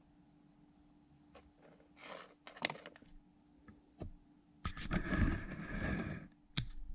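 Small hobby servos in an animatronic action figure whirring as its arm lifts a can to its mouth, with a louder buzzing run of about a second and a half near the end. Scattered clicks and light knocks come before it, and one sharp click follows.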